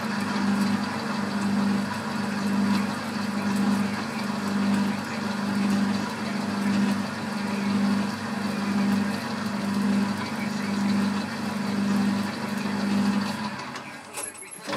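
Boxford lathe running under power, its motor and gearing humming steadily with a regular throb a little faster than once a second. The sound drops away briefly near the end.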